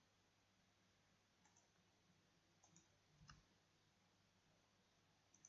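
A few faint computer mouse clicks over near-silent room tone, the loudest with a dull knock about three seconds in.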